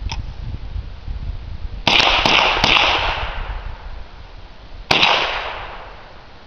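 Gunshots: a quick string of four or five shots about two seconds in, then a single shot about five seconds in, each echoing away.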